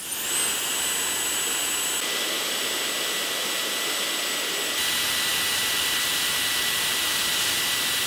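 Dyson Supersonic hair dryer's bare compressor, its small high-speed motor and impeller, spinning up almost instantly and then running steadily at full speed: a high-pitched whine over a rush of air.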